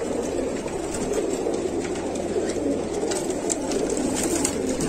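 A crowd of domestic pigeons cooing together in a packed coop, many overlapping coos forming one continuous sound, with scattered light clicks and scuffs.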